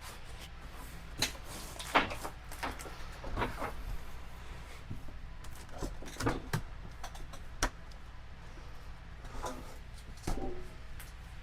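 Irregular knocks, bumps and scrapes of a mini fridge being pushed and wrestled into a tight space, with two sharper knocks standing out.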